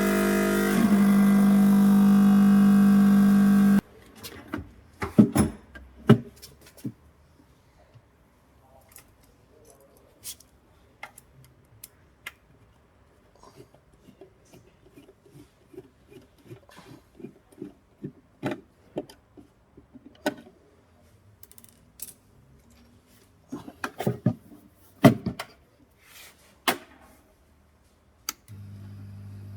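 Hot-air rework station's diaphragm air pump running with a loud, steady buzzing hum. The station is noisy and vibrating. The hum cuts off suddenly a few seconds in, then come scattered clicks and knocks of the unit being handled. Near the end a much quieter steady hum starts up.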